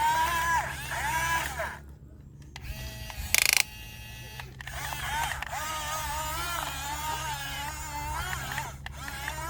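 Electric motors of a remote-control excavator whining as it works, the pitch rising and falling with the load. A short, loud buzz comes about three and a half seconds in.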